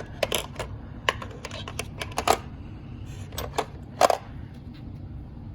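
Irregular sharp metal clicks and clinks from a 1/4-inch drive ratchet set being handled, with tools and sockets knocking against their metal case. There are about a dozen clicks, the loudest about four seconds in.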